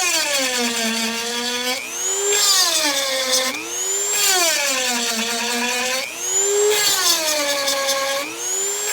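Dremel rotary tool with a 7/32 stone bit grinding the teeth of a chainsaw chain. Its whine drops in pitch as the stone bites each tooth and climbs back between teeth, about once every two seconds, four times.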